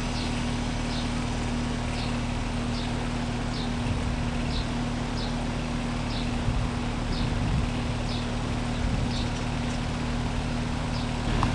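Carrier Comfort 14 heat pump outdoor unit running steadily in heat mode: a constant compressor hum under the whoosh of the condenser fan. Short high chirps repeat about once a second in the background.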